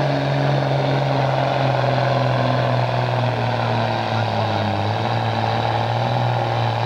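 John Deere diesel tractor engine running hard under full load on a pull, its exhaust note steady and then sagging slightly in pitch about four seconds in as it lugs down.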